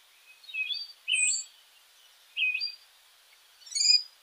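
Birds chirping: four short bursts of quick, high chirps with quiet gaps between them, the last burst the busiest, over a faint hiss.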